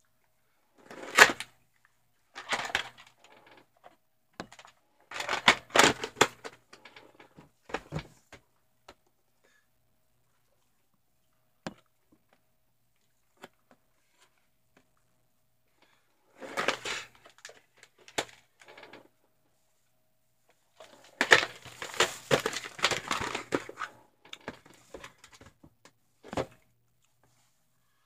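VHS tapes and their cases being handled: plastic cassettes, sleeves and a clamshell case clattering, clicking and scraping in several bursts, with quiet gaps between.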